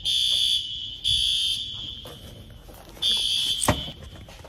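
Building fire alarm sounding for a fire drill: a loud, high-pitched electronic tone in pulses about half a second long that stop and restart. A sharp knock about three and a half seconds in.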